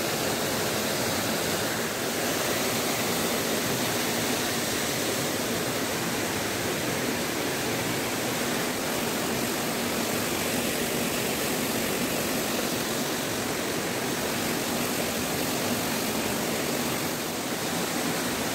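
Steady rushing of a fast, turbulent stream flowing over rocks.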